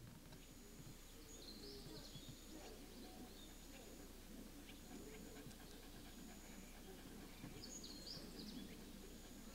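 Shiba Inu panting softly, with short quick breaths. A few faint high chirps come about two seconds in and again around eight seconds in.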